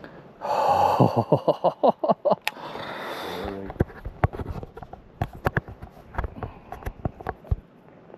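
A cast with a baitcasting rod and reel: a loud whoosh and rattling whir of line leaving the spool for about three seconds, with quick clicks in it. Then scattered light clicks and knocks of the reel and rod being handled.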